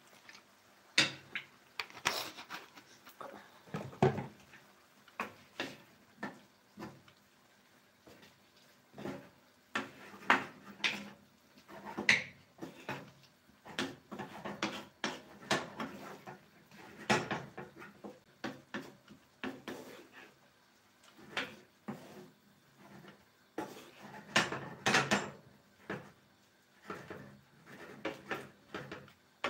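Wooden spatula stirring squid adobo in a frying pan, scraping and knocking against the pan in quick, irregular strokes.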